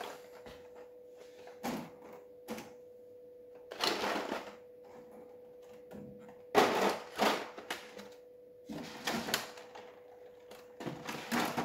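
Plastic packaging trays of miniatures being handled and lifted out of a box: irregular bursts of crackling plastic and a few sharp clicks, the loudest about six and a half seconds in, over a faint steady hum.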